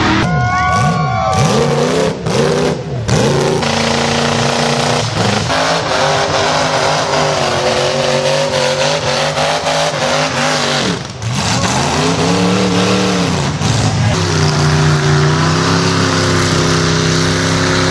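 A motor vehicle's engine running under load, revving up and down repeatedly with its pitch rising and falling.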